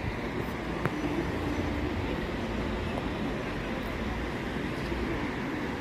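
Steady outdoor background noise with a low, fluttering rumble, and faint voices of people talking now and then.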